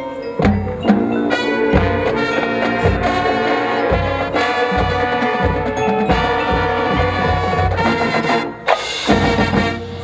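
Marching band playing loud brass chords over drum hits. After a brief break near the end it plays a last full chord that stops sharply.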